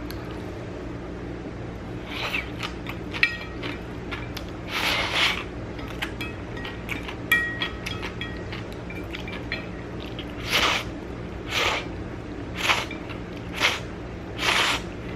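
A person slurping spicy chewy noodles: one long slurp about five seconds in, then a run of five short slurps about a second apart near the end. Chopsticks click against the ceramic plate a few times in between, with a brief ring.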